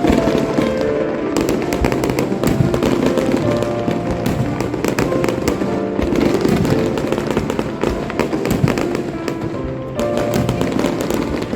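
Fireworks display: a dense, continuous run of bangs and crackling from bursting shells, with music playing alongside.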